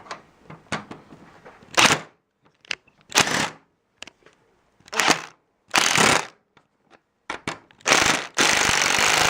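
Impact driver running in short bursts, five quick pulls of the trigger, then a longer steady run near the end, driving a tight-fitting screw or bolt home.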